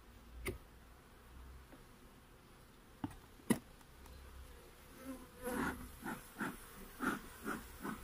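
Honeybees buzzing faintly over an open hive, broken by three sharp knocks as the wooden frames are handled. From about five seconds in comes a run of short puffs, roughly two a second, from the bee smoker's bellows.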